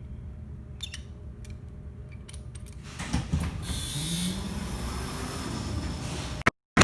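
Vintage Westinghouse freight elevator: a low steady hum with a few light clicks, then about three seconds in its power-operated vertical bi-parting doors start opening with a louder mechanical rumble and a rising motor whine, cutting off suddenly near the end.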